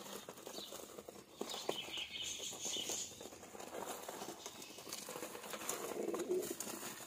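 Faint sounds of caged pigeons: low cooing near the end, a few high chirps about two seconds in, and small scattered knocks and rustles.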